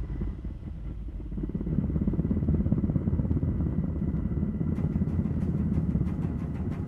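A low, steady engine-like rumble. Faint rapid ticks, about four or five a second, join in near the end.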